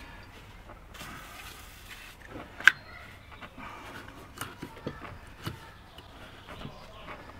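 Aerosol spray can with a straw nozzle hissing for about a second, followed by one sharp click and a few light knocks and cloth rubbing as a motorcycle engine's gear-selector shaft is sprayed and wiped clean.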